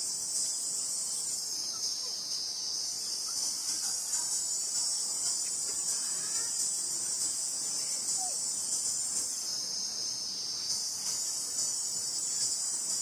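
Steady, high-pitched chorus of insects buzzing continuously, its upper part thinning briefly twice.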